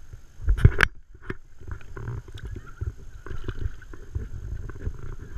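Handling noise from releasing a small striped bass off the side of a paddle board. There are two sharp knocks a little over half a second in, then lighter scattered taps over a low rumble.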